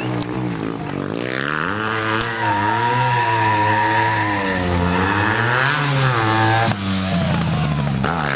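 Stunt motorcycle engine revving up and down repeatedly, with a tyre squealing steadily through the middle of the stretch.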